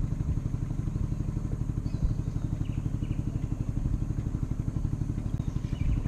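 Small boat motor running steadily with a fast, even putter, driving a wooden canoe along the river.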